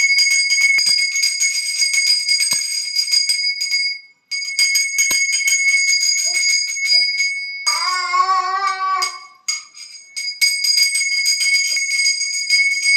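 Puja hand bell rung rapidly and continuously for the aarti, with a clear high ring. It stops for a moment about four seconds in, and again for about two seconds past the middle, where a brief wavering held tone sounds instead.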